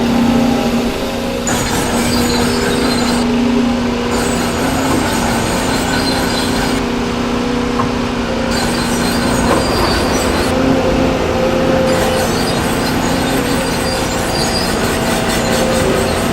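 Dubbed-in recording of a full-size excavator's diesel engine running steadily, with a high hiss that cuts in and out every few seconds.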